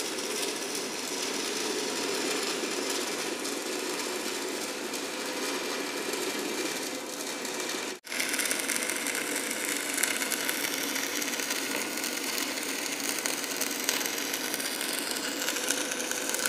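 Stick (arc) welding on steel: the electrode arc crackles and hisses steadily as a step plate is welded to the staircase stringer. The sound cuts out for an instant about halfway through, then carries on.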